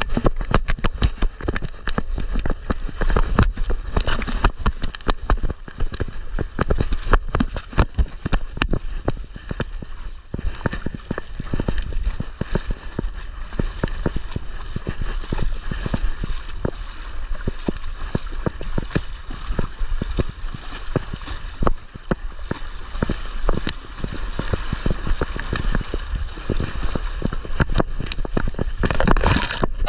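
Handling noise from an action camera strapped to a bullmastiff's back as the dog moves about: continual rubbing and wind rumble with many sharp knocks and bumps.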